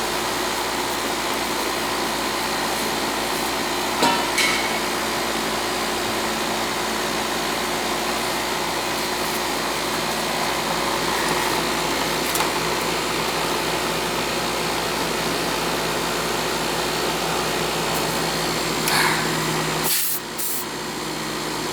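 Air conditioner's outdoor condensing unit running: steady whoosh of the condenser fan over a faint compressor hum, with a couple of brief knocks about four seconds in and near the end.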